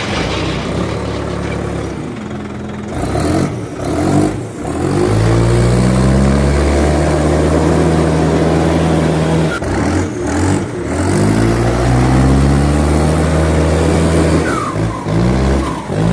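A tractor engine revving up twice. Each time it climbs in pitch and then holds a steady run, with a brief drop in between.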